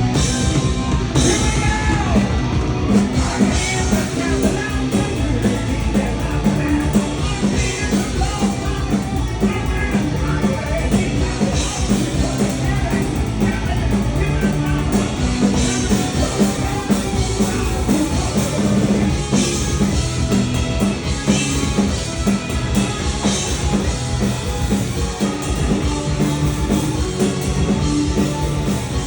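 Punk rock band playing live: drum kit and amplified instruments, with sung or shouted vocals over the top.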